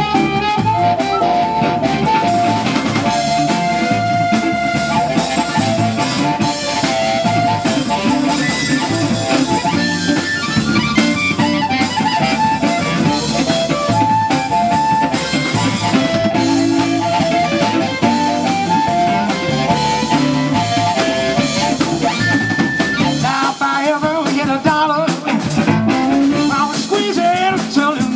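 Live electric blues band: a harmonica played into a microphone carries the lead with held, bending notes over electric guitar, bass and a drum kit.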